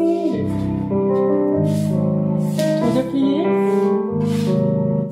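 Music for a ballet barre exercise, with piano and sustained melodic notes.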